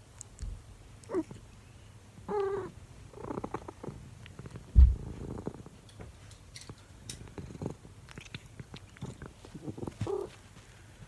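An elderly calico cat right at the microphone, purring and giving a few short chirping meows. A loud low thump comes about five seconds in.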